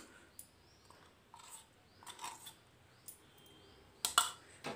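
Light scrapes and small taps of a spoon putting lumps of solid ghee into an empty kadai, with a sharper clatter of the spoon on the pan about four seconds in.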